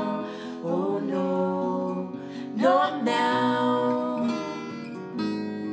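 Acoustic guitar strumming, with a wordless sung melody over it: long held notes that slide up into pitch.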